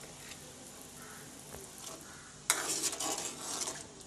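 A metal ladle stirs boiling water and vegetables in an aluminium kadai on a gas stove: a low simmer, then from about two and a half seconds in a loud swishing, scraping stir lasting about a second and a half. This is the seasoned water for upma being stirred before the rava goes in.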